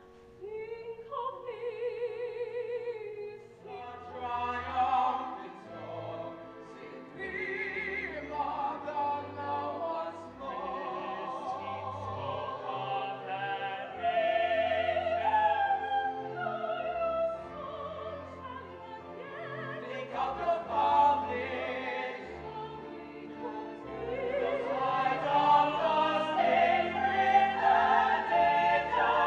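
Men and women singing an operatic stage-musical ensemble, with vibrato, over an accompaniment with sustained low bass notes. Single voices alternate at first, and it grows fuller and louder over the last few seconds.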